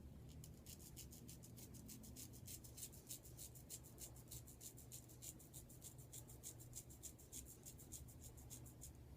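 Faint, rapid scratchy rasp of a vintage Adoration straight razor cutting stubble in short strokes, about five a second, over skin coated with lather-less shaving cream.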